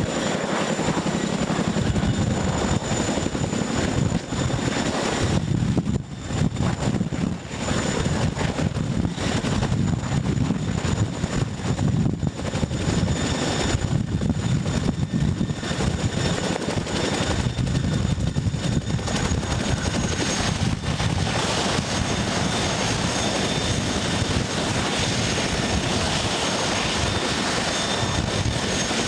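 Twin-turbine CH-47 Chinook tandem-rotor helicopter hovering low and setting down, its rotor blades chopping over a thin, high turbine whine. In the last third, with the helicopter on the ground and its rotors still turning, the chopping evens out into a steadier sound.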